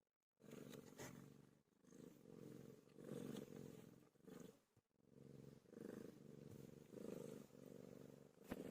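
Domestic cat purring faintly, in rhythmic pulses about one a second as it breathes in and out.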